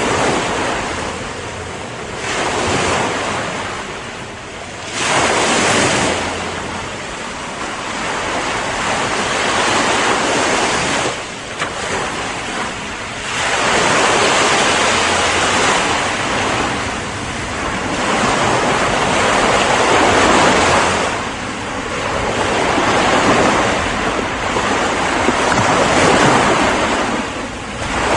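Ocean waves breaking and washing on a shore, the surf swelling and easing every few seconds.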